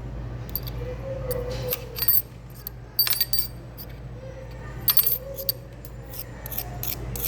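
Small metal pieces clicking and clinking against a magnetic mineral, a dozen or so sharp metallic clicks at irregular intervals. A steady low room hum runs underneath.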